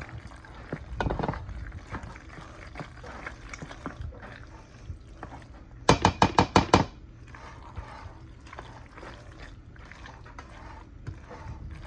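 Spoon stirring thick macaroni and cheese in a stainless steel pot: sticky, wet squelching with small scrapes against the pot. About halfway through comes a quick run of about seven sharp metallic clacks of the spoon against the pot.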